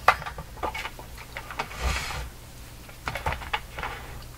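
Handling noise from an open amplifier chassis being set down and its wiring moved: a string of irregular clicks and knocks of metal on the bench, with a brief scrape about two seconds in. A faint low hum runs underneath.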